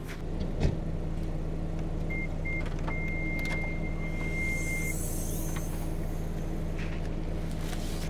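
SUV engine idling steadily, with a single sharp knock about half a second in and a thin, steady high tone for about three seconds in the middle.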